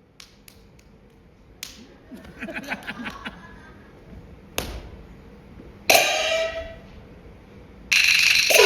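Chinese opera percussion accompanying stage combat: scattered sharp clicks and strikes, then one loud clash with a falling ring about six seconds in. Near the end the full gong-and-cymbal section comes in loudly.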